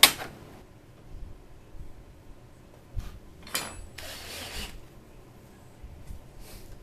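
Tools and materials handled on a workbench: a loud sharp knock at the start, a click about three seconds in, then another sharp click followed by a short rasping hiss about a second long, and a few faint clicks near the end.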